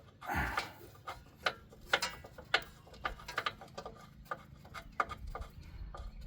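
Ratchet wrench with a 16 mm socket clicking in short irregular runs as a rear hub bolt is backed out, with a brief rustle or knock under a second in.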